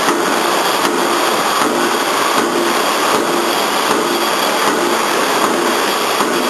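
Mechanical power press of a CNC punching machine punching holes in steel plate, a little over one stroke a second, over the steady running of the press and its CNC feeding table.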